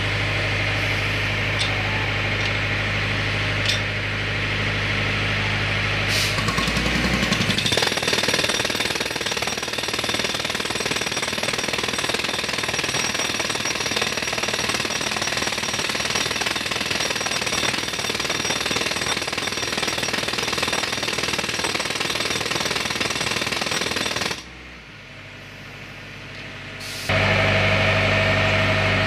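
A pneumatic rock drill hammers rapidly and continuously into a wooden log, driven by a 175 CFM Airman diesel air compressor. It starts about seven seconds in and runs for about seventeen seconds before stopping. Before it starts, the compressor's Yanmar diesel engine runs steadily with air hissing. Near the end, the compressor's engine runs steadily again, heard close up.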